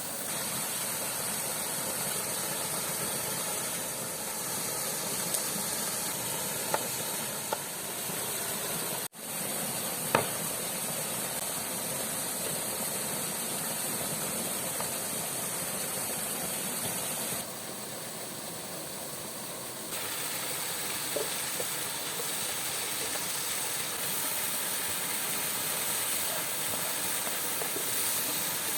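Waterfall rushing steadily, with a few short sharp clicks over it and a brief dropout about nine seconds in.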